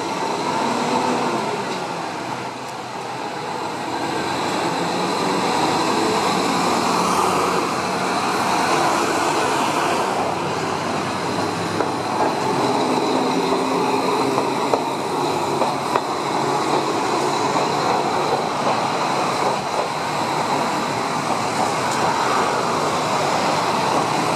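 Okayama streetcar (the Tama tram) running along its street track, its wheels clicking over rail joints, with road traffic around it.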